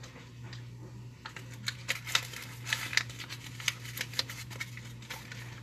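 Crinkling and crackling of a homemade paper squishy being handled and squeezed, with a busy run of short, sharp crackles through the middle.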